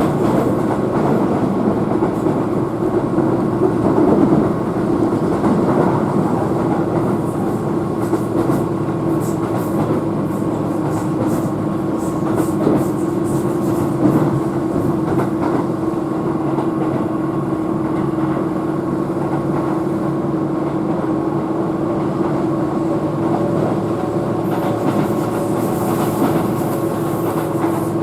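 Keihan electric train running at steady speed: a continuous running hum with a held motor tone. Around the middle there is a run of short clicks from the wheels crossing rail joints.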